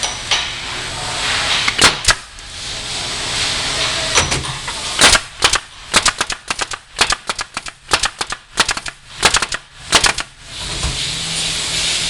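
Hive body assembly machine driving fasteners into wooden box joints. Two sharp clacks come about two seconds in, then a rapid, uneven run of sharp shots from about five to ten and a half seconds. Air hisses before and after the shots.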